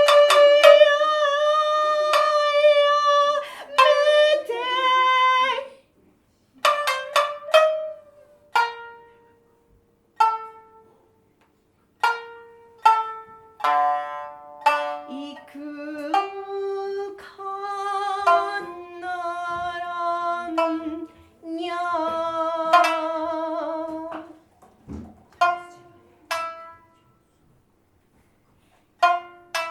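Music: a voice singing long, wavering held notes over sparse plucked string notes, with short pauses between phrases.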